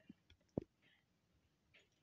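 Near silence broken by a few faint clicks from handling the shrink-wrapped headphone box, the loudest about half a second in.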